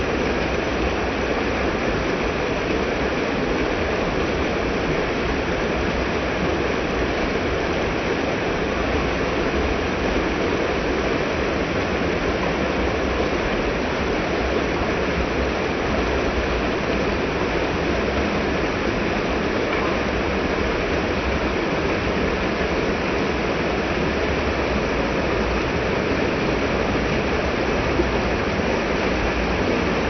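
Water of a small stream tumbling over rocks in a little cascade, running steadily.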